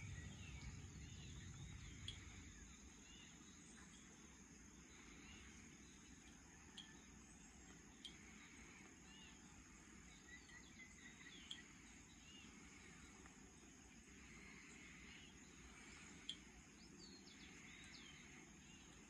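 Faint open-air ambience with distant birds giving short chirps and calls now and then. A low rumble dies away in the first couple of seconds.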